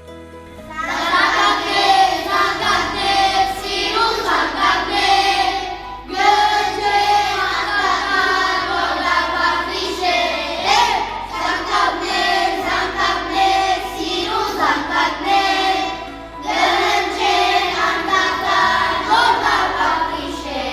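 Children singing a song with musical accompaniment, in sung phrases with brief pauses about six and sixteen seconds in.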